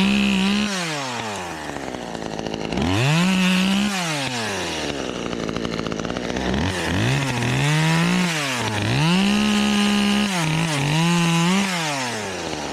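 Two-stroke chainsaw revved up to full throttle and held in bursts about five times, its pitch falling back toward idle between each burst.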